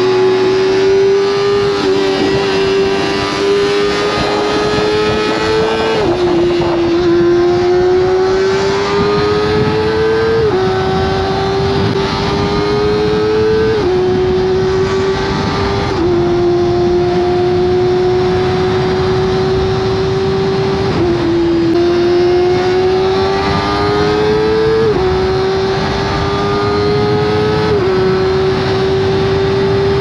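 Kawasaki ZX-25R's 250 cc inline-four running at high revs through an Akrapovic exhaust, a high-pitched wail whose pitch climbs slowly and then drops sharply about every three to five seconds.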